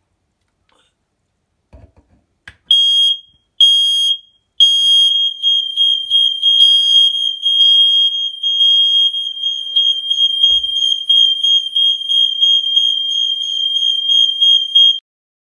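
Smoke alarm being tested, sounding a loud, high-pitched tone: a few faint clicks, then two short beeps, then a continuous tone for about ten seconds that cuts off suddenly.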